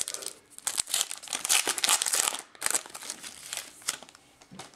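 Foil wrapper of a trading card pack being torn open and crinkled by hand: a dense crackling, loudest about a second or two in, thinning to scattered crinkles near the end.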